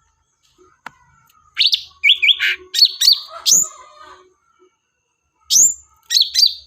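Songbird lure call: two bursts of quick, sharp chirps and down-slurred whistles, the first starting about one and a half seconds in and the second near the end.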